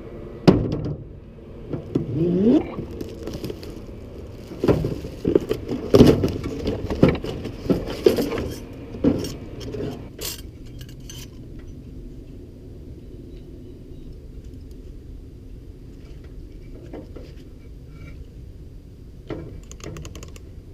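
A series of sharp clinks and knocks from hard objects being handled for about ten seconds, then a steady low hum.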